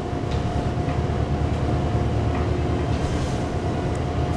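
Engines of a Z-Tech 2800 ASD tug running, a steady low rumble with a faint steady whine, heard inside the wheelhouse.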